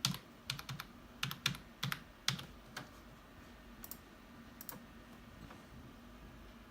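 Computer keyboard keys being typed while a Wi-Fi network password is entered. There is a quick run of about a dozen keystrokes in the first three seconds, then two more isolated key presses.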